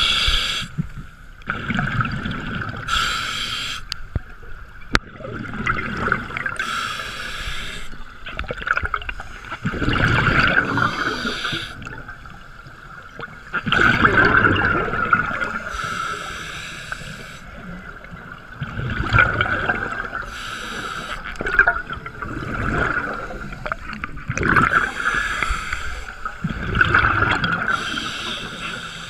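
Scuba diver breathing through a regulator underwater: a hiss on each inhale alternates with a low rush of exhaled bubbles, the cycle repeating every few seconds.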